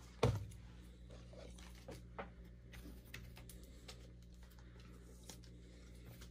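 Light clicks and handling noises of rigid plastic card top loaders being picked up and handled, with one sharper knock just after the start, over a low steady hum.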